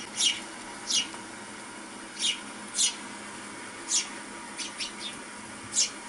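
Sparrows chirping: short, sharp chirps that each drop quickly in pitch, about seven of them at uneven spacing, with a quick cluster of smaller chirps near the end.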